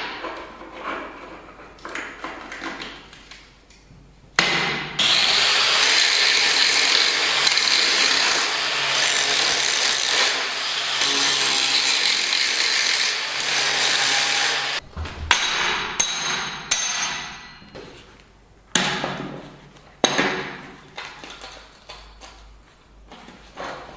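A power tool running steadily under load on steel for about ten seconds, then stopping suddenly, followed by several sharp metal clanks with a short ring.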